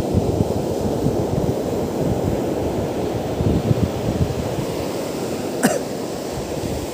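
Waves breaking on a sandy beach, with wind noise on the microphone. A single sharp click comes about two-thirds of the way through.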